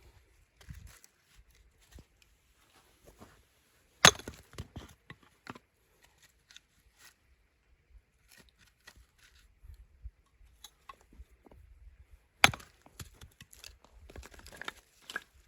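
Wood being chopped or snapped: two loud, sharp cracks about four seconds in and again near the end, each followed by a scatter of smaller snaps and rustles.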